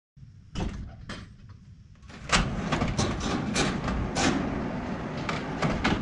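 Large sheet-metal sliding barn door being opened: a couple of clanks, then about two seconds in it rolls along its track with a rattling rumble and scrapes for about four seconds.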